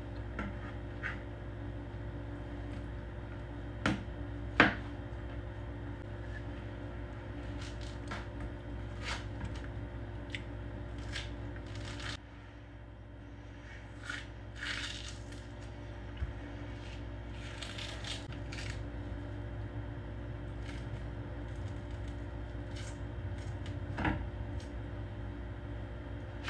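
Kitchen knife clicking and knocking on a plastic cutting board while fruit is cut, with two sharp knocks about four seconds in, then citrus rind and pith being torn and peeled off by hand in short rustling bursts, all over a steady low hum.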